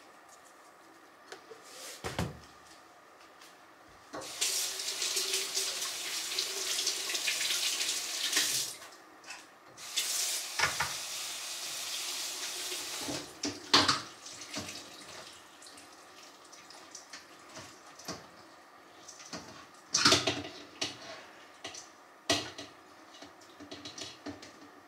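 Kitchen tap running into a sink in two spells of a few seconds each, with knocks and clatters in between.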